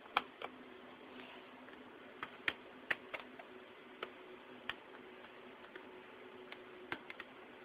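Small flathead screwdrivers clicking and prying against the plastic clips of a laptop's keyboard cover strip: about a dozen sharp, irregular clicks.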